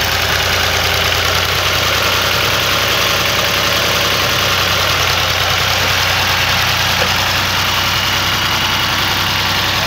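Al-Ghazi tractor's diesel engine running steadily as the tractor pushes soil with a front-mounted blade.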